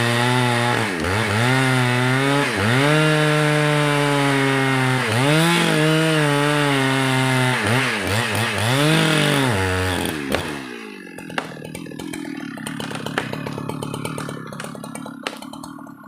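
Two-stroke chainsaw cutting red meranti wood at high revs, its engine pitch sagging and recovering several times as the chain loads up in the cut. About ten seconds in the throttle is released and the saw drops to a quieter idle, with a few sharp clicks.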